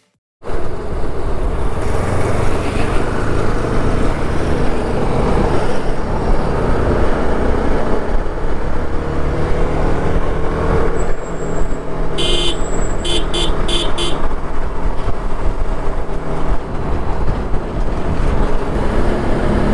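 Onboard sound of a TVS Apache RR 310 motorcycle riding at road speed: steady wind rush and engine running, the engine note rising and falling in places. About twelve seconds in, a horn sounds one blast and then three quick short toots.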